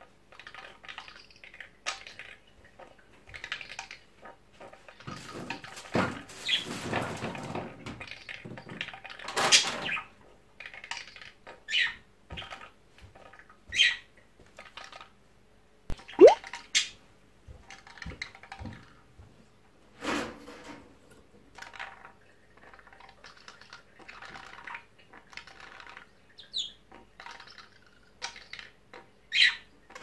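Pet budgerigar chattering in short chirps, clicks and warbles, mixing in mimicked sounds: an imitation of a ball being thrown and calls of an Indian ringneck parakeet. The loudest sound is a quick upward-sweeping call about sixteen seconds in.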